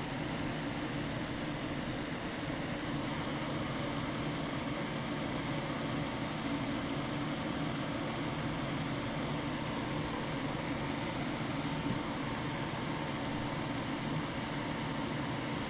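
Steady machine hum and hiss with no change in level, with a couple of faint high ticks.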